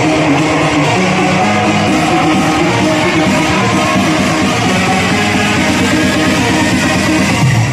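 Loud music with guitar, playing steadily.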